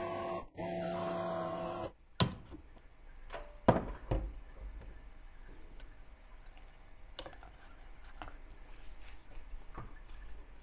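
Electric hand blender with a chopper bowl running steadily as it purées turkey breast with milk and egg, cutting out for a moment about half a second in, then stopping after about two seconds. Then scattered knocks and scrapes of a spoon in the plastic chopper bowl.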